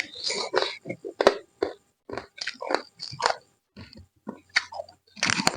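Close-up chewing and biting of a chicken neck, with irregular crunches and sharp clicks between the chews.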